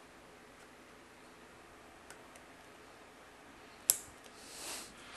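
Faint handling clicks of small drone parts being fitted together: two light ticks about two seconds in, then one sharp click, the loudest sound, a little over a second before the end, followed by a short rustle.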